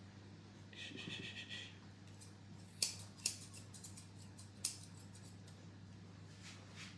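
Grooming scissors snipping the hair around a spaniel's foot: a few sharp snips, the three loudest in the middle, with a brief high squeak about a second in.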